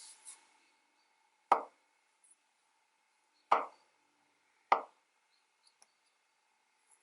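Three sharp knocks, like hard strokes on wood, the first about a second and a half in, then two more close together, each with a short ringing decay.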